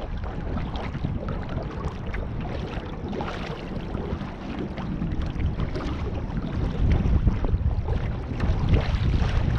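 Wind buffeting the microphone over water splashing and rushing along the hull of a canoe under way, growing louder in the last few seconds.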